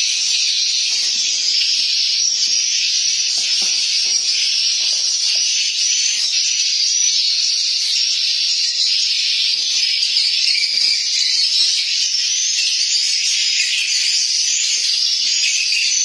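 Swiftlets twittering: a dense, steady mass of high chirping calls, with faint scuffs and knocks underneath.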